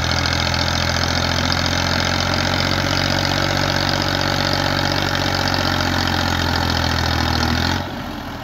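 Massey Ferguson 240 tractor's three-cylinder diesel engine running steadily under load while hauling a heavily loaded sugarcane trolley. Near the end its sound drops sharply and it carries on more quietly.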